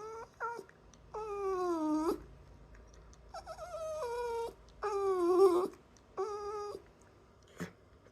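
A dog whining in a string of drawn-out, high-pitched calls, several sliding down in pitch, with short gaps between them. A single sharp click comes near the end.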